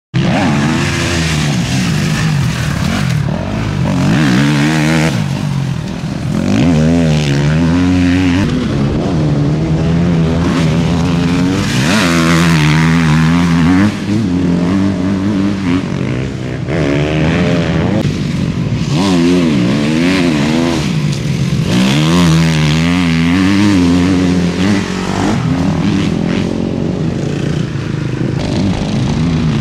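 Husqvarna factory motocross bikes riding the track, their engines revving up and down through the gears. The pitch rises and falls again and again, every few seconds.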